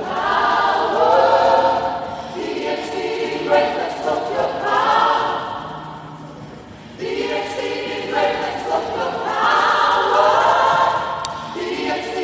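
Church choir singing together in phrases; the sound eases off about five seconds in and the full choir comes back in loudly about seven seconds in.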